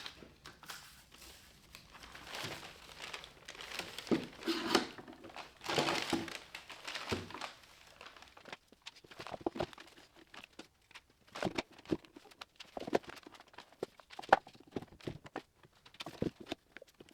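Woodworking clamps being handled and fitted onto a glue-up: rustling and scraping in the first half, then scattered sharp knocks and clunks as the clamps go on.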